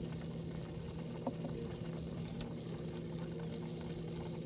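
A boat motor running with a steady, even hum, with a few faint ticks.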